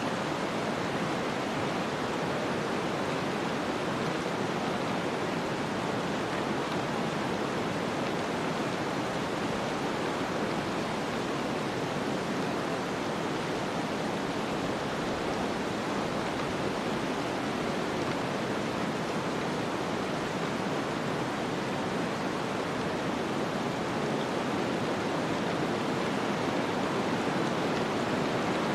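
Snowstorm wind ambience: an even, steady rushing noise with no gusts or breaks standing out.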